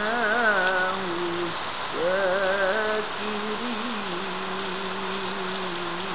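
A woman's voice reciting the Quran in a melodic chant, holding long vowels: two warbling, ornamented phrases in the first three seconds, then one long steady held note. A steady hiss runs underneath.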